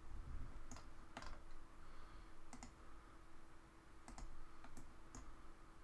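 Computer mouse clicking: about eight separate short clicks, some in quick pairs, over a faint steady hum.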